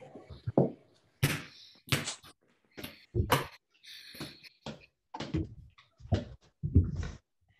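Soccer balls thudding on floors and feet as players juggle and bounce-juggle, heard over video-call microphones: irregular thuds of uneven loudness, about two a second.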